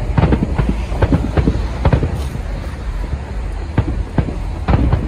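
Aerial fireworks bursting overhead, a rapid string of bangs over a low rumble; the bangs come thick at first and thin out about halfway through.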